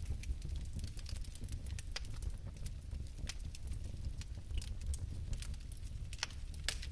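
Bioethanol fireplace burning: a steady low rumble of flame with scattered, irregular sharp crackles and pops.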